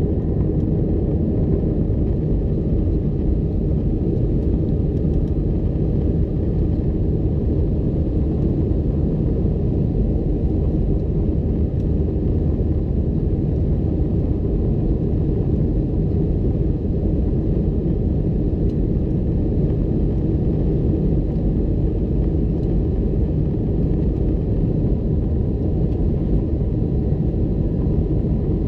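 Airbus A319 cabin noise in flight: a steady, even rumble of the jet engines and airflow, heaviest in the low range.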